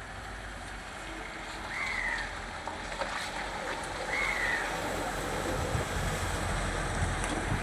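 Steady rushing noise with a low engine rumble that grows stronger near the end, and two short chirps a couple of seconds apart.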